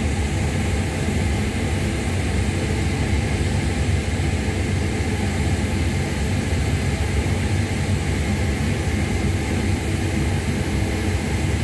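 Steady low drone of running machinery, holding an even level with a hum of a few low pitches.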